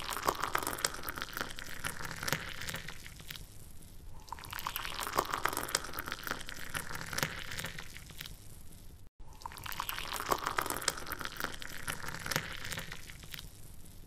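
Splashing, trickling water with fine droplet crackle. It swells and eases every few seconds, with a very brief break about nine seconds in.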